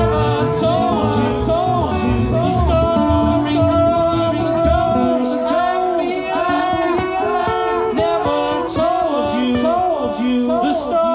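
Live band music in an instrumental break: a guitar plays a lead line of arching, bent notes over the band. The low bass and drums thin out about five seconds in, leaving the guitar lines on top.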